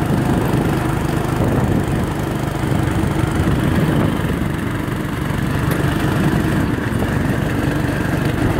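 Small off-road vehicle engine running steadily as it rides across rough grass.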